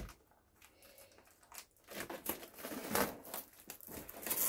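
A short knock right at the start, then plastic shrink-wrap crinkling and tearing as it is peeled off a long cardboard box, beginning about two seconds in and getting louder.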